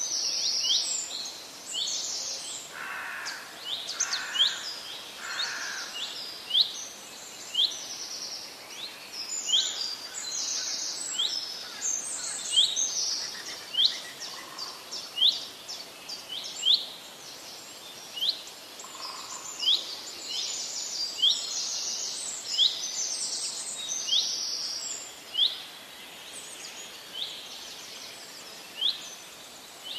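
Wild birds calling in a dense chorus: many short high chirps repeating roughly once a second, with three lower calls in quick succession a few seconds in and a few single lower notes later.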